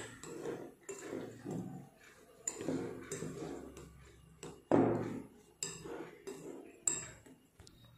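A metal spoon stirring dry ground chocolate-biscuit powder in a bowl, working baking powder through it. Uneven scraping strokes with clinks of the spoon against the bowl, the sharpest knock about halfway through.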